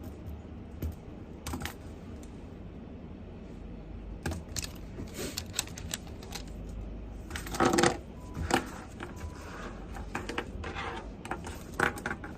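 Scattered small clicks and knocks of objects being handled on a study desk, with a louder clatter about two-thirds of the way through, over a low steady hum.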